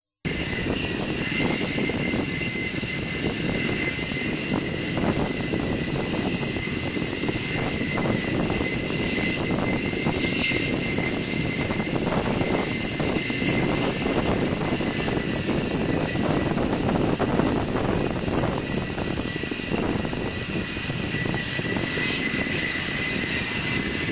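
F-4 Phantom jet fighter's twin engines running steadily on the runway: a continuous rumble with a high, even whine over it.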